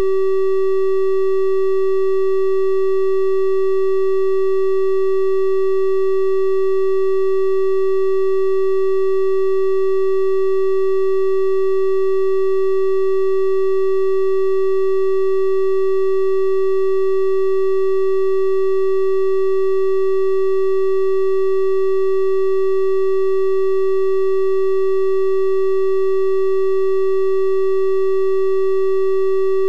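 Synthesized 384 Hz triangle-wave tone, held steady and unchanging, with faint odd overtones above it.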